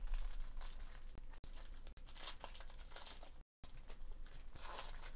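Foil trading-card pack wrapper being ripped open by hand, crinkling and tearing in irregular crackles.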